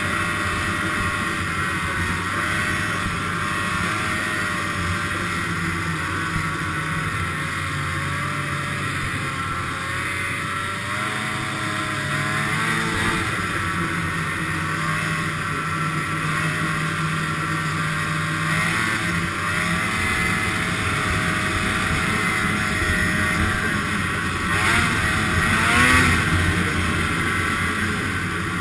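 Polaris snowmobile engine running under way, its pitch rising and falling a little with the throttle, and swelling louder and higher near the end.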